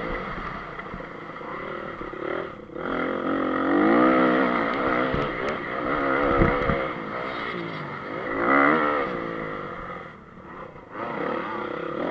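Honda CRF250 four-stroke single-cylinder motocross engine at full race pace, its pitch climbing and dropping as the rider works the throttle and shifts. The throttle is cut briefly about a quarter of the way in and again near the end. There is a thump about halfway through.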